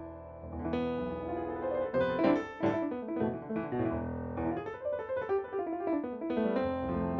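Roland RD-700 digital stage piano, set to a piano sound, played in a fast improvisation with both hands: quick runs of single notes mixed with chords.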